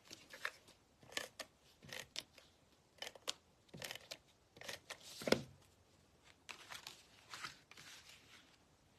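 Cardstock and paper being handled on a craft mat: a string of short scrapes, rustles and light taps, with one louder knock about five seconds in.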